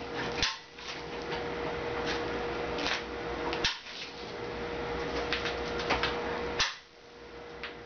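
Hinged steel anti-tip footstep of a sheet metal brake being folded up and lowered by its handle: several sharp metal clanks and rattles over a steady background hum.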